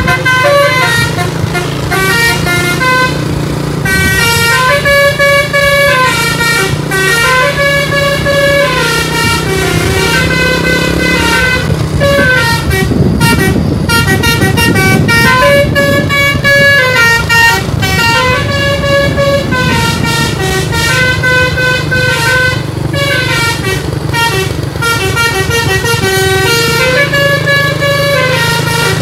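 Bus telolet horn, a basuri multi-tone air horn, playing a tune of stepped notes that rise and fall in repeating phrases, over the bus engine's steady low running; the engine grows rougher for a few seconds around the middle.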